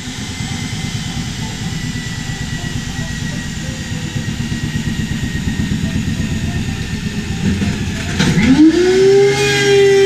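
Electric drill running with a fast, rhythmic clatter and a steady whine as it drives a punching glove. About eight seconds in comes a clunk, then a DeWalt thickness planer's motor spins up with a rising whine and settles into a loud, steady hum.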